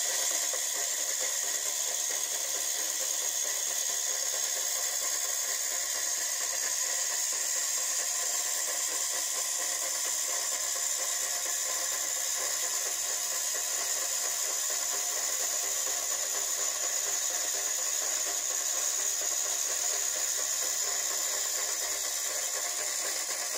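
Drive mechanism of a tinplate model paddle steamer running, turning the brass paddle-wheel shaft with a steady, unbroken mechanical whirr.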